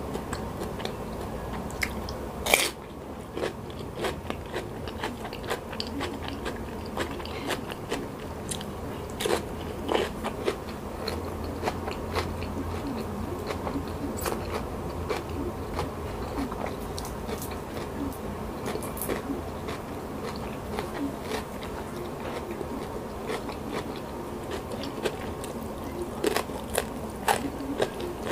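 A person eating close to the microphone: biting and crunching raw cucumber dipped in sambal, with one loud, sharp crunch about two and a half seconds in, then steady chewing with many small wet clicks.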